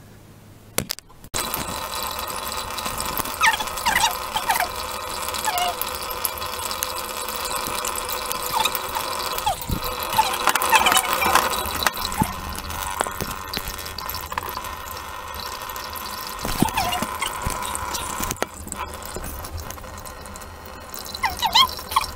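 Water running steadily from a kitchen tap into a stainless steel sink, starting about a second in, with short squeaky sounds now and then.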